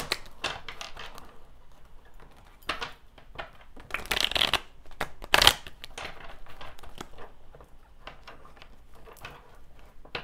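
A deck of tarot cards being shuffled by hand: a run of irregular flicks and rustles, with a few louder snaps of the cards near the middle.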